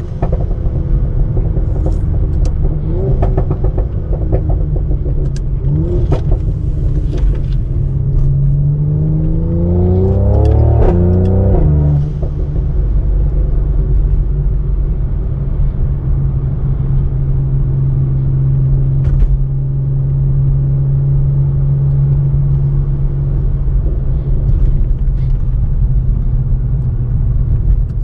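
Tuned Mercedes-AMG C43's twin-turbo V6 and exhaust under way, with a few sharp crackles in the first half. The revs climb in a pull about eight to eleven seconds in, then the engine settles into a steady low drone.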